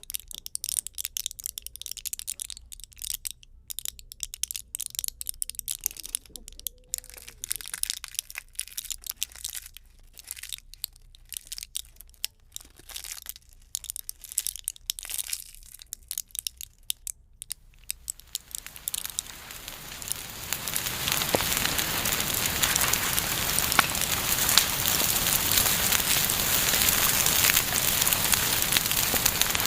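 Bonfire crackling: scattered sharp pops and snaps at first, then about two-thirds of the way in it swells into dense, louder continuous crackling and hissing.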